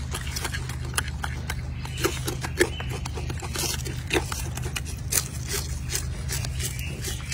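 A golden snub-nosed monkey chewing and handling crisp romaine lettuce leaves: irregular short crunches and leaf crackles, several a second at times, over a steady low hum.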